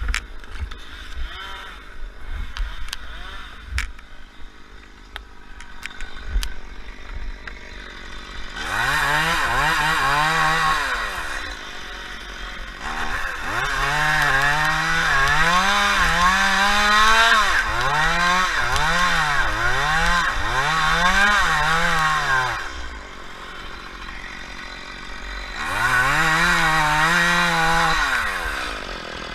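Chainsaw engine idling with a few knocks, then revved to full throttle in three spells. The pitch dips and climbs again several times in the long middle spell, and the saw drops back to idle in between.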